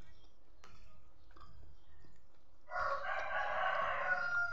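A loud animal call starting a bit more than halfway through, held at an even pitch for about two seconds and falling in pitch as it ends. Faint clicks come before it.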